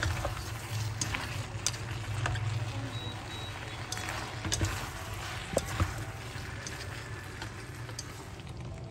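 Cooking at the stove: a utensil clicks and scrapes against a pan now and then over a steady low hum.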